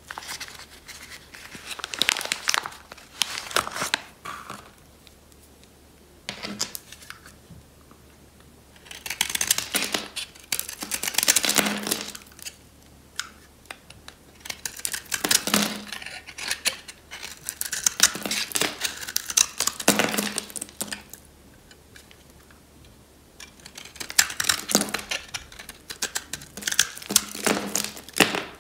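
Utility knife blade shaving a dry, hard bar of soap: crisp, crunchy scraping in repeated passes of one to a few seconds, with short pauses between.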